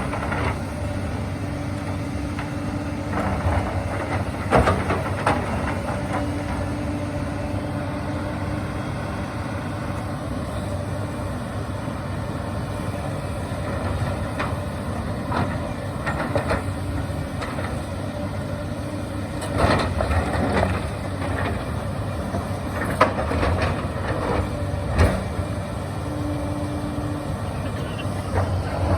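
Hyundai 220 excavator's diesel engine running steadily, with a humming tone that comes and goes as the hydraulics work. Scattered knocks and scrapes come from the stone being dragged and turned over; the loudest are about 20, 23 and 25 seconds in.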